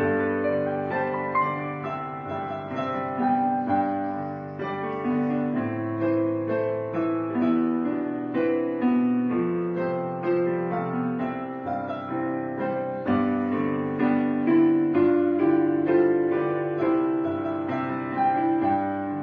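Background piano music: slow notes over held chords.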